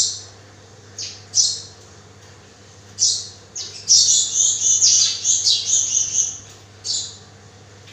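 Small birds chirping and squawking in short high-pitched calls, some falling in pitch, with a dense run of calls in the middle, over a faint steady hum.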